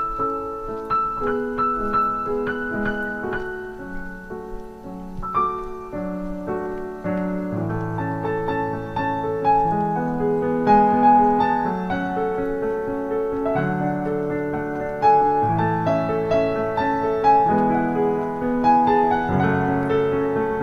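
Background piano music, chords and melody notes, growing fuller with lower notes about a third of the way in.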